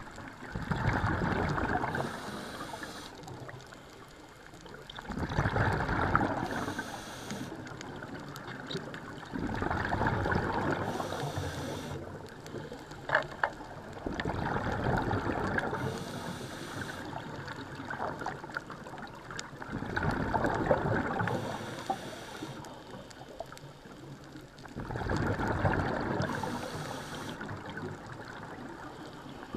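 A scuba diver breathing through a regulator underwater in a slow, even cycle about every four and a half seconds. Each breath is a loud rush of bubbling exhalation followed by a short high hiss of the demand valve on the inhale, six breaths in all, with a couple of sharp clicks about halfway through.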